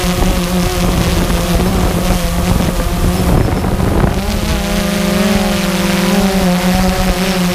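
Multirotor drone's motors and propellers humming steadily, a stack of steady tones that waver briefly in pitch about halfway through as the motors adjust, over wind buffeting the microphone.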